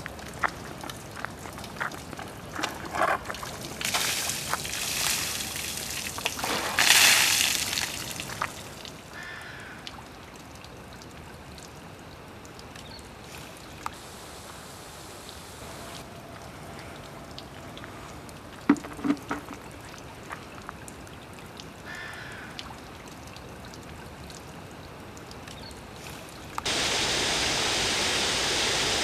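Water trickling from a small jet into a stone fountain basin, with a few louder bursts and knocks in the first eight seconds. Near the end the sound switches abruptly to the steady, much louder rush of the Trevi Fountain's cascades.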